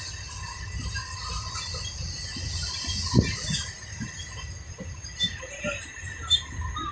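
Ambience inside a sleeper-class railway coach: a steady low rumble with faint high thin tones, broken by a few short knocks, the loudest about three seconds in.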